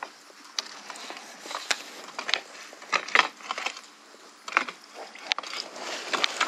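A hooked fish splashing at the water's surface as it is scooped into a landing net: a run of irregular sharp splashes, thickest about three seconds in.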